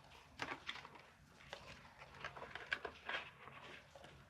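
Faint rustling with scattered light clicks and knocks: a small product package being opened and its contents handled.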